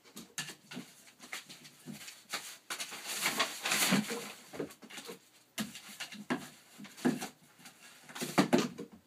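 A puppy playing with a cardboard mailing tube and torn brown packing paper on a hardwood floor: irregular rustling and crinkling of paper with knocks and scrapes of the tube. It is loudest about four seconds in, as paper is flung about, and again in a burst of knocks near the end as the tube is pushed along the floor.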